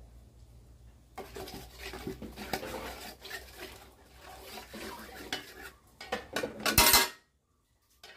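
Long metal spoon stirring and scraping in a steel cooking pot, with irregular clinks against the pot's sides. There is a louder clatter about seven seconds in, and then the sound cuts off suddenly.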